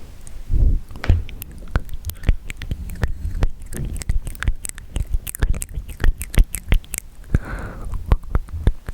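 Wet mouth sounds close to a microphone: irregular clicks, pops and smacks of tongue and lips, several a second, with a short breathy swell about three-quarters of the way through.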